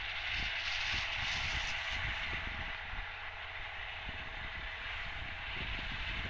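Tractor with a mounted grass mower running steadily while mowing, heard as a constant even drone, over an uneven low rumble.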